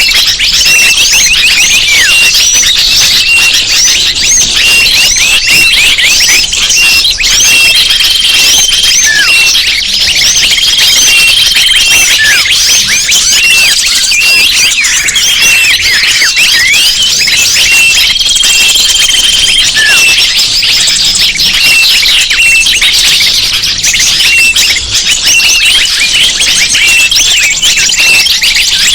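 Bird-lure recording: a dense chorus of many small birds chirping and twittering at once, high-pitched and continuous, with a held whistle note recurring every few seconds.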